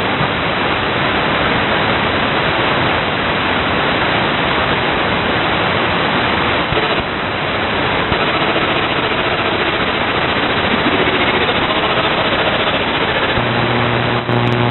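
AM radio static: steady hiss from an RTL-SDR receiver demodulating AM in SDR Sharp, with no station's voice, cut off above about 4 kHz. About a second before the end a steady low hum with a few overtones comes in.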